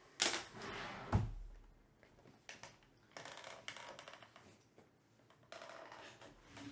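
Cardboard Topps Pristine card boxes handled and set down on a tabletop: a sharp knock, then a heavier thud about a second in, followed by stretches of scraping and rustling as the boxes are shifted.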